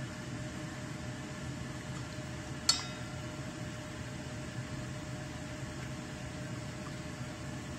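Steady background hum with a faint steady tone, and about a third of the way in a single sharp ringing clink: chopsticks striking a stainless-steel bowl while eggs are beaten.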